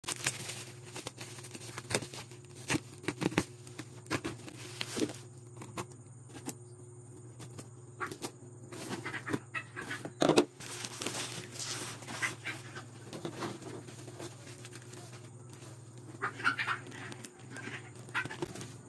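A cardboard box and its plastic packaging being handled and opened: irregular knocks, rustles and crinkles, over a steady low hum.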